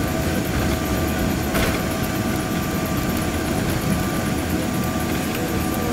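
Cabin noise of a Boeing 777-300ER rolling out on the runway just after touchdown: a steady rumble of wheels and engines with a steady engine whine, and a single click about one and a half seconds in.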